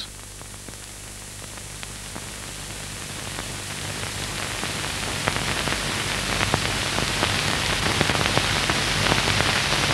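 Crackling hiss with many scattered clicks, getting steadily louder, over a low steady hum.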